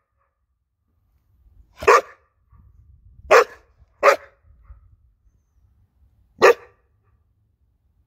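Young Presa Canario dog barking four times: single sharp barks a second or two apart, with a longer gap before the last.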